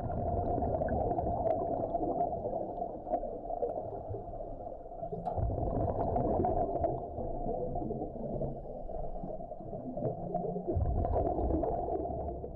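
Underwater ambience: a steady rumbling, gurgling wash with faint crackles, swelling in low rumble about five seconds in and again near the end.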